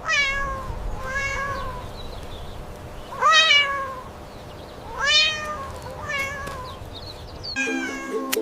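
A cat meowing repeatedly, about six separate meows, the loudest around three seconds in. Light ukulele music comes in near the end.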